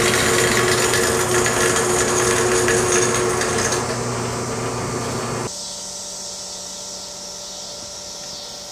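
Power tool working steel, loud and steady with a machine hum under it. It eases off around four seconds in and cuts off abruptly about five and a half seconds in, leaving a quieter steady hum.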